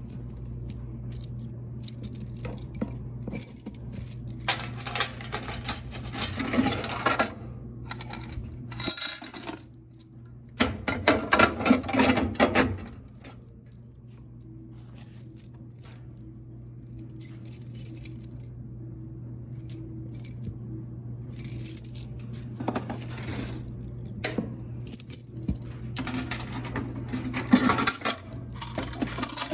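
Quarters clinking and rattling in repeated handfuls, with keys jangling, over a steady low hum.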